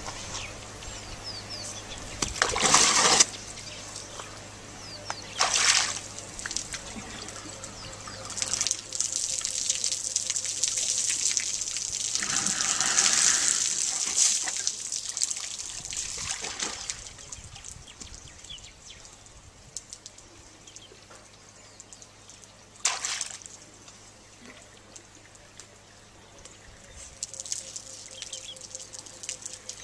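African elephant drinking from a swimming pool: water trickling and splashing as its trunk draws water up and lets it run back into the pool. Several short splashes, with a longer spell of splashing and trickling about halfway through.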